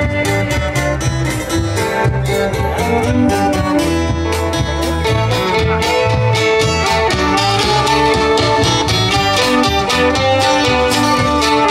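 Folk string band playing an instrumental break in a bluegrass-style tune: fiddle with strummed cuatro and mandolin over bass and percussion, keeping a steady, even beat.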